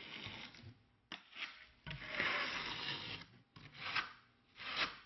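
Trowel scraping and spreading thinset mortar in several separate strokes, the longest lasting about a second and a half in the middle.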